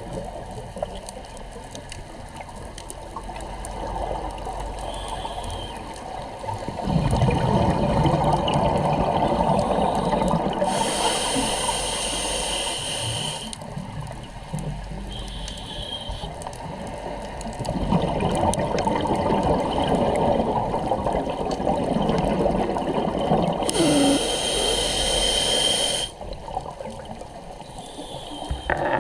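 A scuba diver breathing through a regulator underwater: exhaled bubbles gurgle and rumble, each followed by a hissing rush of air on the inhale, in two slow breath cycles.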